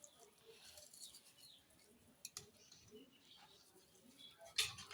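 Faint, scattered small clicks and soft wet rustling of hands mixing raw chicken pieces with spice paste, with a few sharper clicks about halfway through and a louder knock of handling near the end.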